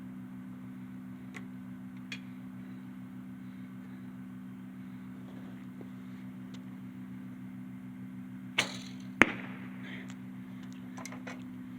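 A single shot from a Bear Whitetail bow: a short whoosh-thwack of the string and arrow leaving about eight and a half seconds in, then a sharp smack about half a second later. A steady low hum runs underneath.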